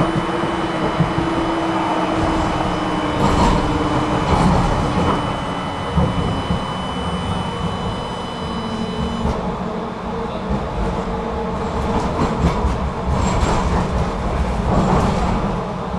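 Tram running, heard from inside the passenger car: a steady rumble of wheels on rails with scattered clicks over the track, and a whine that falls in pitch over the first few seconds.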